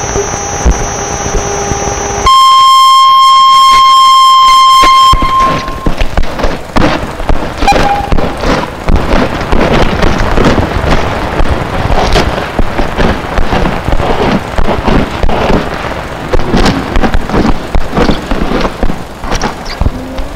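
Experimental electronic soundtrack: a steady two-tone drone for about two seconds, then a loud, piercing single tone for about three seconds that cuts off, giving way to dense, scratchy crackling full of clicks and noise.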